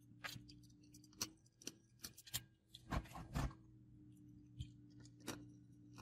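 Faint, irregular clicks and taps, about eight of them, from fingers handling a small circuit board and fitting an LED's wire into its green screw terminal block.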